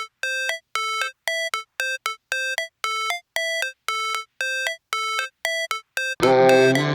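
Background music intro: a sparse melody of short synth notes, about two a second, with gaps of silence between them. A full electronic backing track with bass comes in about six seconds in.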